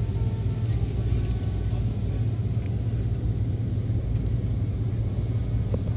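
Steady low rumble of an Airbus A330-300 taxiing after landing, heard from inside the passenger cabin, with faint high whining tones that fade out about a second in and return near the end.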